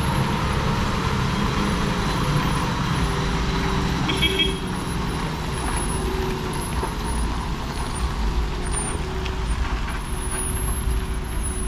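Heavy diesel lorry engine running steadily under load as the truck crawls slowly around a tight hairpin bend. A brief high-pitched tone sounds about four seconds in.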